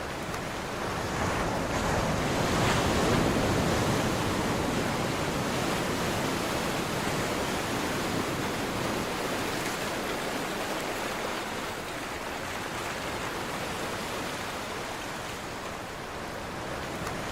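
Ocean surf breaking on a shore: a wave swells to a peak about three seconds in and slowly washes back, and the next one builds near the end.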